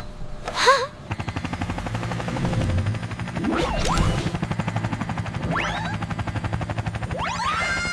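A fast, even mechanical rattle over a low steady hum, with a few short whistle-like glides rising and falling over it.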